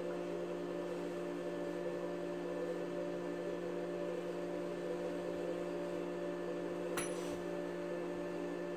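A steady hum of several held low tones, with one sharp click about seven seconds in as a small hex key works on a chrome shower body-spray jet being fitted to its wall trim.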